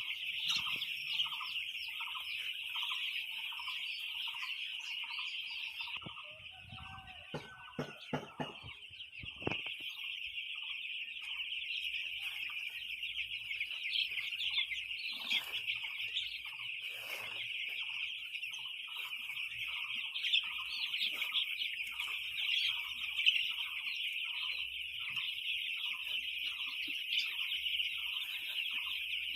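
Chickens in a flock: a dense, unbroken high-pitched peeping, over short clucking notes repeating about twice a second, with a longer gliding call about seven seconds in.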